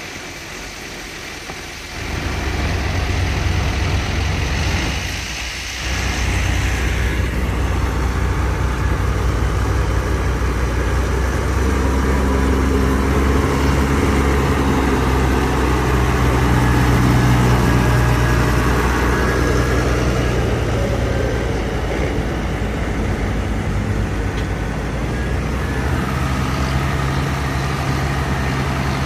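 Big farm tractor diesel engines working hard as they tow mud-stuck trucks out on tow straps, running steadily under load. The engine sound comes up sharply about two seconds in and is loudest around the middle.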